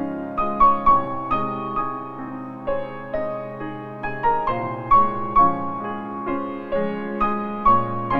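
Background piano music, a steady run of single notes and chords.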